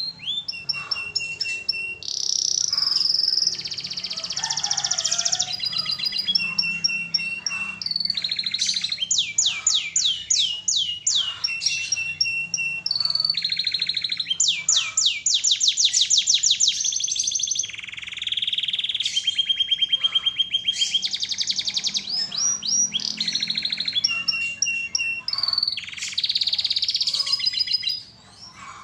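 Domestic canary singing full song: fast, high-pitched trills and rolls of rapidly repeated notes, switching from one phrase to the next every second or two. The song breaks off shortly before the end.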